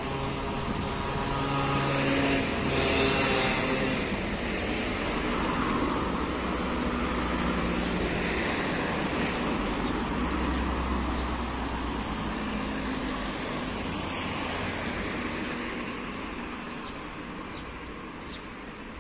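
Road traffic passing on a city street: a motorcycle and cars drive by, the loudest pass about two to four seconds in, with the traffic fading toward the end.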